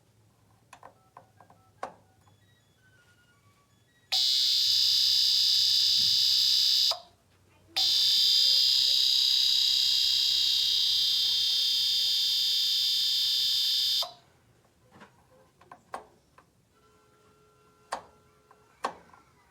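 A loud, shrill, alarm-like tone from a De'Longhi mica panel space heater. It sounds for about three seconds, breaks off briefly, then sounds steadily for about six more before cutting off suddenly. It is an unexplained noise that the owner finds comes and goes with the thermostat setting. A few faint clicks come before and after it.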